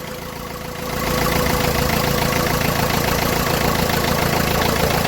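Ford Figo diesel engine idling steadily with its usual diesel clatter, just after its No. 3 injector was refitted and bled; it runs evenly, now OK. It grows louder about a second in.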